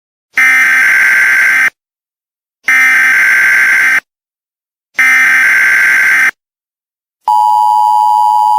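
Emergency Alert System (EAS) SAME header: three bursts of buzzing digital data tones, each a little over a second long with short gaps between. About seven seconds in, the steady two-tone EAS attention signal follows, announcing an emergency alert.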